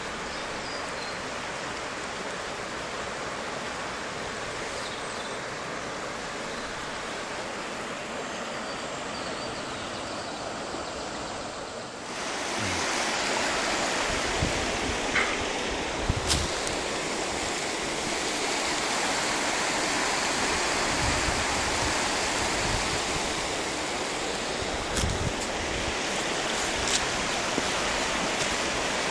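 Shallow mountain river rushing over stones, a steady rush of water. About twelve seconds in it becomes closer and louder, with a few short low knocks.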